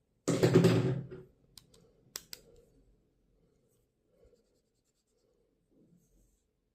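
Stationery being handled: a loud scratchy rustle lasting about a second, then two light clicks, then faint handling noise.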